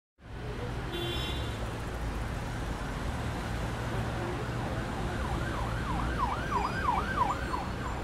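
Street ambience with a steady low rumble of traffic. From about five seconds in, an emergency-vehicle siren yelps rapidly up and down, about three sweeps a second.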